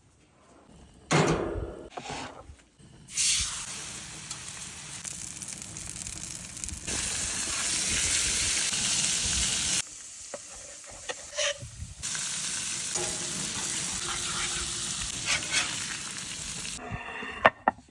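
Trout fillets sizzling on a hot Himalayan salt block on a gas grill, a steady frying hiss that starts about three seconds in, drops away for a couple of seconds midway, and stops near the end. A metal spatula scrapes and clicks against the block a few times.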